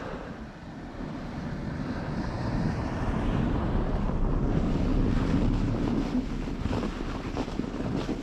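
Wind rushing over the microphone, swelling to its loudest about halfway through and easing off again, with a few light knocks near the end.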